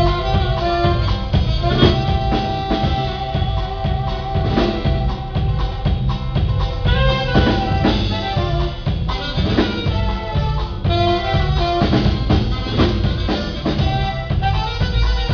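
A band playing an instrumental passage at a sound check, with a drum kit keeping a steady beat under bass and a sustained horn-like melody.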